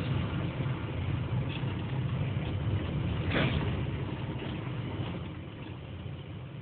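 Car driving slowly over an unpaved road, heard from inside the cabin: steady low engine and tyre rumble with road noise, and a brief knock a little past three seconds in.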